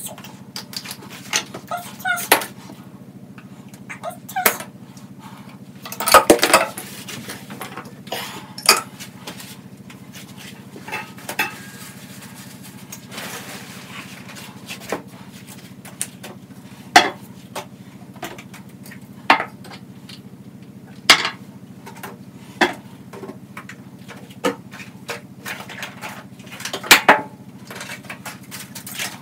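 Irregular knocks and clatter of bathroom items being picked up and set down during cleaning, a few sharp hits every couple of seconds, over a steady low hum.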